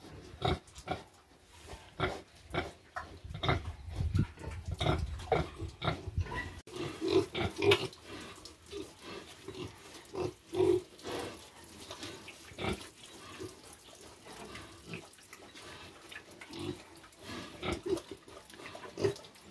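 Pigs grunting: short, low grunts coming irregularly, among small clicks and rustles.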